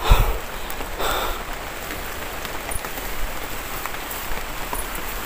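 Steady rain pattering on forest leaves, with a low thump right at the start and a brief rustle of foliage about a second in.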